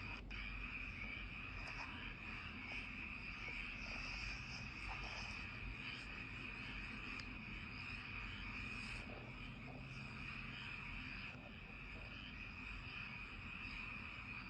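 Steady countryside night chorus of calling insects and frogs: a continuous high trill, with a faint low rumble underneath.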